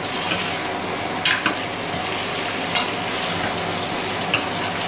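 Spiced chicken pieces sizzling as they fry in a stainless steel pot, stirred with a spatula that scrapes and knocks against the pot several times.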